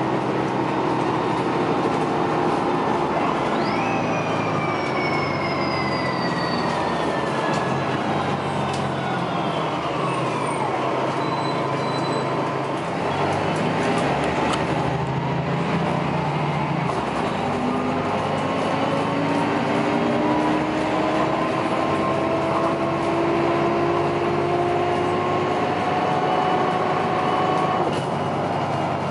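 Articulated city bus heard from inside the cabin while under way: engine and driveline running steadily, with a high whine falling in pitch over the first ten seconds, then tones climbing steadily from about halfway through.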